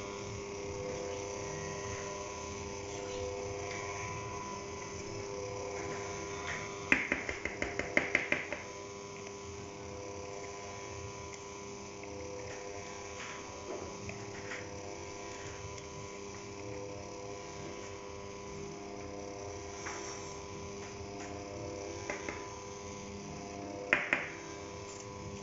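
Stand mixer motor running steadily on its lowest speed, a steady hum as it mixes flour, sugar and butter for bread dough. A quick run of sharp taps about seven seconds in, and two more near the end.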